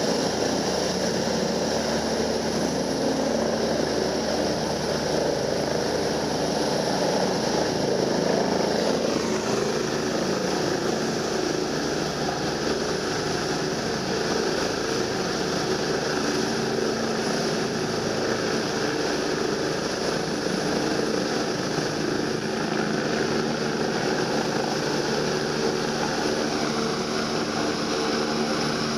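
A DRF air-rescue helicopter's turbine and rotor running steadily and loudly during its landing, with a tone dropping in pitch about nine seconds in.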